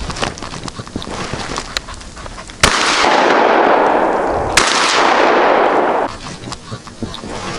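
Two shotgun shots about two seconds apart, each a sharp bang. A loud rushing noise follows the first shot and cuts off suddenly about a second and a half after the second.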